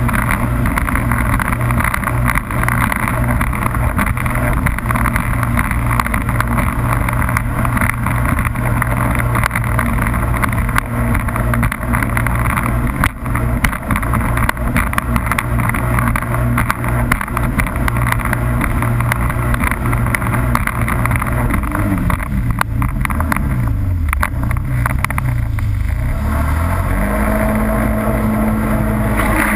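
Jet ski engine running at speed across the water, heard from the handlebars. About three-quarters through, the engine note falls away and then climbs again as the throttle eases and opens through a turn.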